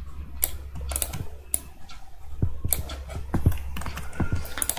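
Irregular clicks of a computer keyboard and mouse, about ten in a few seconds, over a low steady hum.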